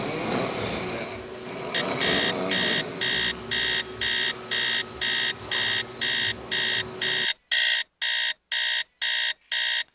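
Electronic alarm clock beeping in an even run of high beeps, about two to three a second, starting about two seconds in over faint room noise. Near the end the room noise cuts out and the beeps carry on alone.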